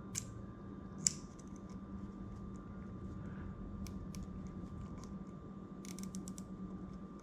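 Faint, irregular clicks and ticks from a red dot sight's elevation adjustment screw being turned, over a steady low hum. There is a sharper click about a second in and a quick run of clicks about six seconds in.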